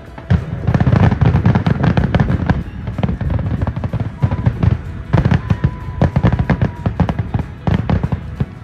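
Aerial fireworks bursting in quick, dense clusters of bangs and crackles, with music playing underneath.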